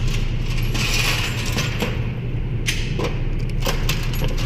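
Light metallic clinks of brass cartridges being handled, several short sharp taps over a steady low hum.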